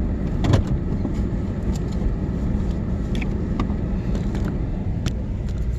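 Vehicle running, heard from inside the cab: a steady low engine and road rumble, with scattered small clicks and rattles.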